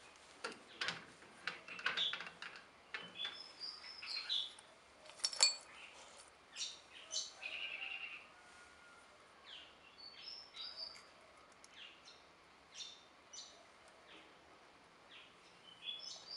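Birds chirping in the background, with scattered short calls throughout. A few light metal clinks come from handling the cutting tool at the lathe toolpost, the sharpest about five seconds in.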